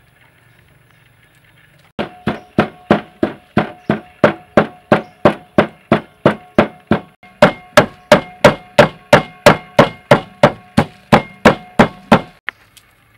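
Wooden pestle pounding dried red chillies in a wooden mortar: a steady run of knocks, about three a second, each with a short ring. It starts about two seconds in and stops shortly before the end.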